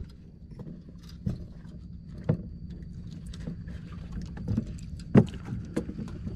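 Light knocks and taps in a small open boat over a steady low rumble, the loudest a single sharp knock about five seconds in.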